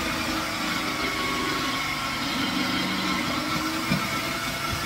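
Electric pumpkin-grating machine running steadily with a whirring motor as pumpkin is pushed down its feed tube and grated. One knock comes near the end.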